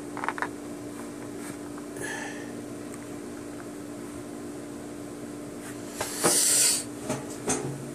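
Small plastic clicks and knocks as 4-inch action figures are handled and set down on a table, over a steady low hum. A short hiss-like rustle just after six seconds in is the loudest sound.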